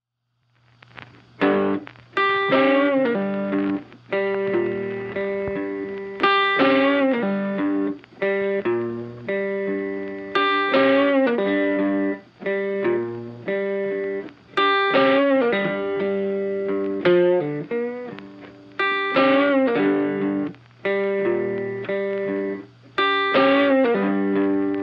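Background music: a funky electric guitar riff with effects, coming in about a second in and repeating its phrase about every four seconds.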